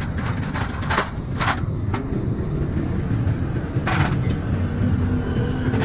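A steady low mechanical rumble, like a running engine. Short hissing bursts come about one, one and a half and four seconds in, and a faint steady hum sets in near the end.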